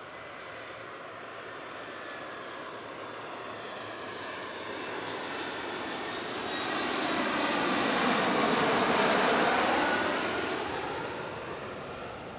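Twin-engine regional jet on final approach passing low overhead: the engine noise swells to a peak about nine seconds in, then fades as it goes by, with a high whine that drops in pitch as it passes.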